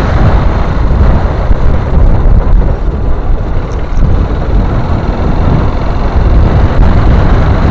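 Wind rushing over the built-in microphone of a camera on a moving motorcycle: a loud, steady, low rumble that rises and falls, with the bike's engine and road noise underneath.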